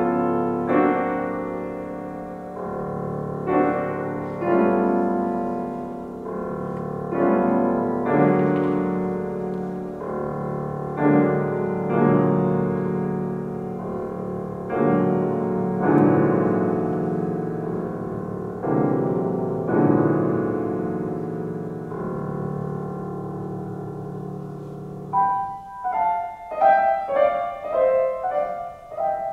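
Yamaha grand piano played solo: full chords struck every second or two and left to ring. About 25 seconds in the playing changes to quick, detached single notes higher up the keyboard.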